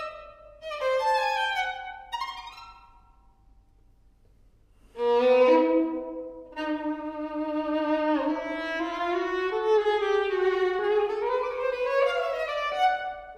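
Solo violin playing slow classical phrases with vibrato. The first phrase fades away into a pause of about two seconds, and the violin comes back loudly about five seconds in with long held notes that slowly climb in pitch.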